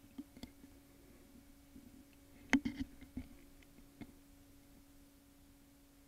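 A rose seed's hard shell cracks between the jaws of small cutting pliers with one sharp click about two and a half seconds in, followed by a few smaller clicks as it splits. A faint steady hum runs underneath.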